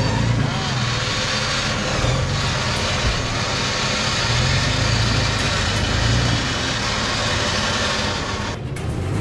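An off-road 4x4's engine running under throttle as it works through a muddy trail obstacle, with a loud, even rushing noise over it that cuts off abruptly near the end.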